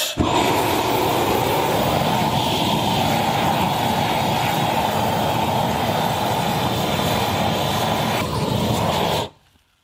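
Large handheld gas burner torch running with a steady rushing flame, heating a pot of potato strips and sausage; the flame cuts off suddenly about nine seconds in.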